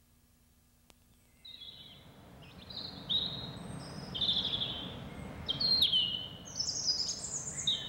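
Outdoor ambience with small birds chirping: many short, high calls over a steady background hiss, starting about a second and a half in and growing busier toward the end.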